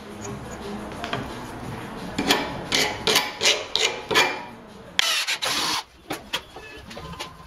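A run of sharp metal taps, some with a short ring, as a steel pin is fitted into the jaw of a cast-iron woodworking vise, followed about five seconds in by a loud rushing noise lasting under a second and a few light clicks.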